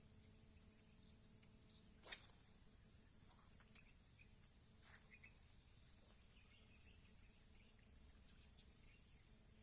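Faint steady high-pitched drone of insects such as crickets, with one sharp click about two seconds in and a softer one about a second and a half later.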